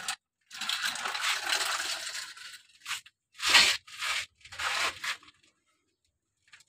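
Dry soil scraping and crunching as plastic toy excavator buckets are pushed by hand through a dirt pile: a longer scrape of about two seconds, then four short scoops, before the sound cuts off abruptly.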